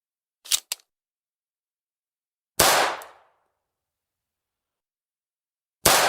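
Two quick clicks, then two single shots from a Walther P22 .22-calibre semi-automatic pistol about three seconds apart, each a sharp crack with a short fading ring. The second shot comes right at the end.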